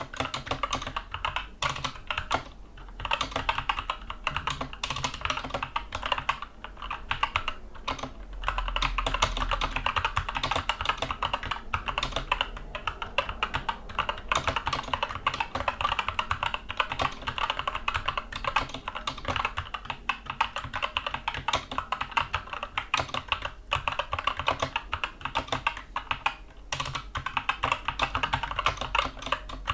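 Continuous typing on a Skyloong SK64 mechanical keyboard with Gateron Brown tactile switches: a dense run of key clacks with a few brief pauses.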